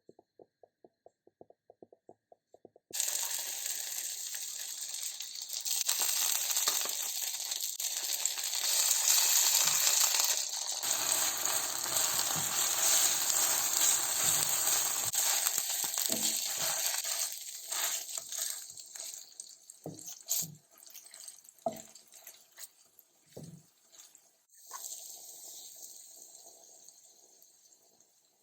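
A run of quick ticks, then a sudden loud sizzle of food in hot oil that slowly dies down, with scattered pops and knocks.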